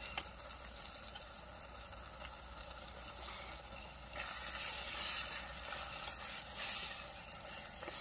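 Steady hiss of a camp gas stove with a pot of pork and onion stir-fry sizzling over it, and louder scraping of utensils in the pot from about four seconds in as the food is served out.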